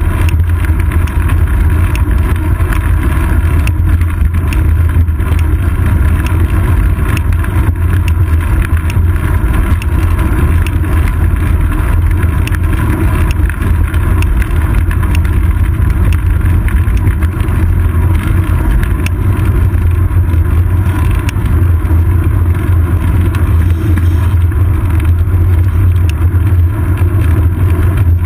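Steady, loud low rumble of wind and road vibration picked up by a seat-post-mounted GoPro Hero 2 on a bicycle rolling along an asphalt road, with small rattling ticks scattered throughout.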